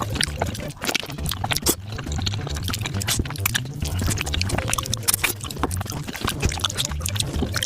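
Close-miked eating sounds played back at five times speed: a rapid, dense stream of wet chewing, smacking and slurping clicks from someone eating spicy beef feet.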